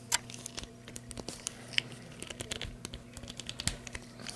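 Small screwdriver clicking and scraping against the core of an old US Eagle government padlock in an attempt to take the core out; the screwdriver is too small to do it. Irregular light metal clicks and ticks, with one sharper click just after the start.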